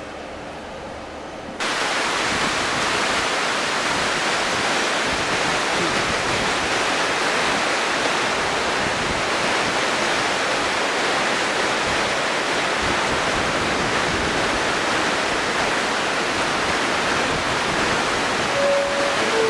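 Steady loud hiss of escaping steam that starts abruptly about a second and a half in and holds even. Near the end come two brief tones, the second lower than the first.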